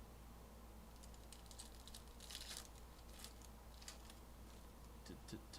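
Trading cards being handled and flicked through by hand: faint, scattered light clicks and brief rustles of card stock, with one longer rustle near the middle.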